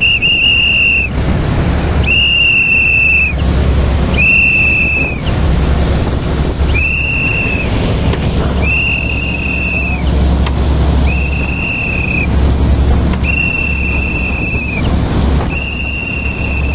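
A moving boat's engine rumble and the rush of wind and water, under a high, steady electronic-sounding beep about a second long that repeats roughly every two seconds, eight times.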